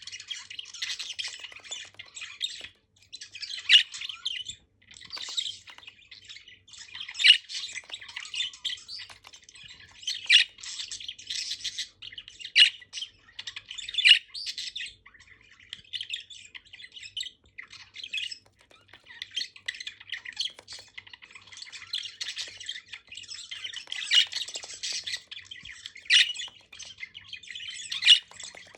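Several budgerigars chattering and chirping non-stop, a busy warble broken by sharp, louder squawks every few seconds.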